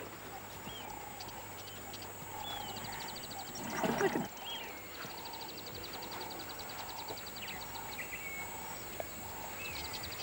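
Wild savanna ambience: birds chirping and trilling, with one louder, short animal call about four seconds in.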